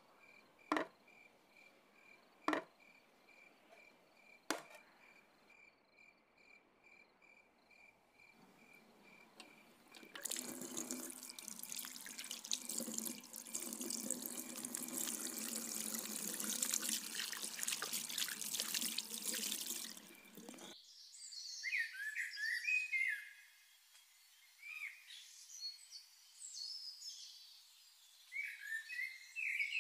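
Three sharp knocks over a cricket's steady chirping. A pause, then a tap runs into a washbasin while hands are washed under it for about ten seconds. Birds chirp after that.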